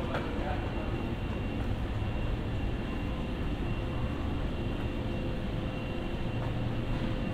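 Steady low hum of city background noise, a rumble with a faint high steady tone running through it.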